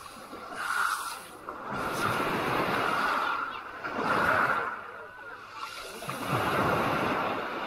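Small waves washing up and back over a shingle beach of pebbles, in about four surges that swell and fade a second or two apart.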